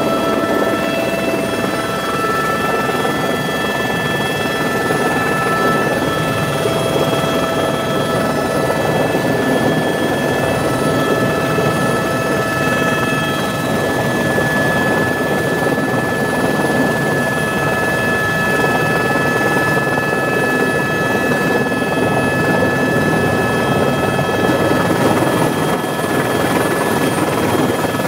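Helicopter running, heard from inside its cabin: a loud, steady rumble of rotor and engine with several steady high whines on top.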